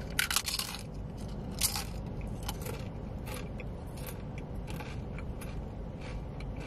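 Crunchy food being bitten and chewed close to the microphone: a cluster of crisp crunches in the first second, another about a second and a half in, then softer scattered crunches.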